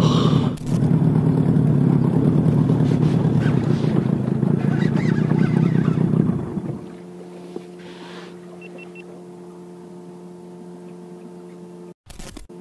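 Small boat's outboard motor running, with wind and water noise, for about six and a half seconds, then the sound drops suddenly to a faint steady hum.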